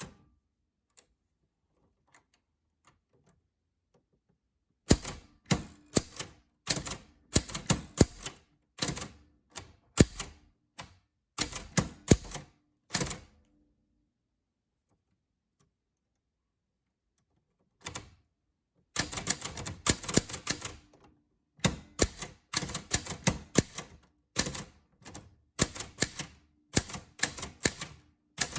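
Typewriter keys striking in quick runs of typing. Faint ticks at first, a burst of typing from about five seconds to thirteen, a pause broken by one strike, then steady typing again through the end.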